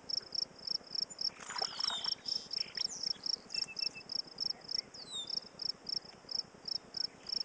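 A cricket chirping steadily in high, even chirps, about three a second, each a quick run of pulses. A few short downward-sliding bird calls come over it, about two seconds in and again after five seconds.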